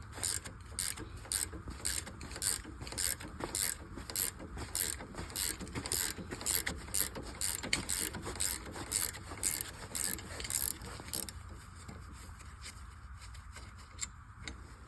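Socket ratchet clicking in quick back-and-forth strokes, about two a second, as the 15 mm rear brake caliper bolts are turned out. The clicking stops about 11 seconds in.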